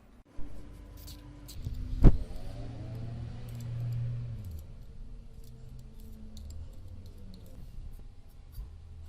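Metal parts clinking and being handled, with one sharp metallic knock about two seconds in that rings briefly and fades, and small clicks scattered throughout.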